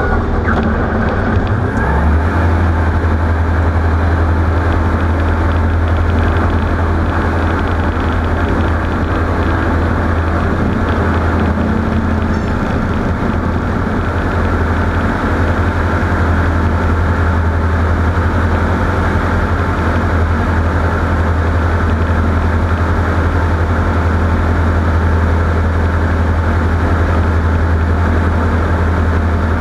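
Steady running noise of a vehicle: a strong low drone with a dense rushing noise over it, settling to an even level about two seconds in.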